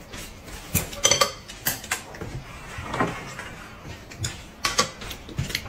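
Chopsticks and ceramic bowls clinking and knocking against each other as the bowls are handled: a string of sharp clicks and taps at irregular intervals.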